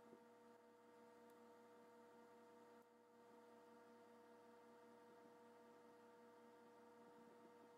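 Near silence with a faint steady hum made of several held tones.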